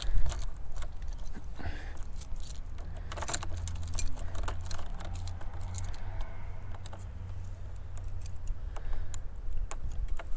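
Keys jangling on a key ring, with scattered small metallic clicks as a key pushes an SKS lock core into the lock knob of a Yakima FrontLoader roof bike rack; the clicks come thickest about three to four seconds in.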